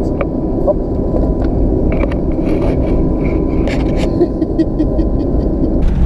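Vehicle driving along a rutted dirt track, heard inside the cabin: engine and tyres make a steady low rumble, with scattered light clicks.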